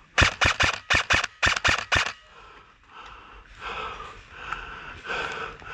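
Airsoft gun firing a quick run of about ten sharp shots in under two seconds, close to the microphone. After that come softer scuffing and rustling noises about every half second.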